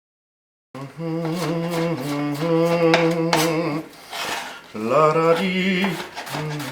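Background music, a melody of held notes, starting suddenly about a second in after dead silence.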